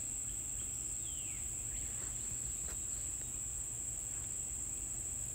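A ballpoint pen scratching faintly as it is pressed along drawn lines through paper into a foam printing plate, with a light falling scrape about a second in. Under it runs a steady high-pitched whine and a low hum.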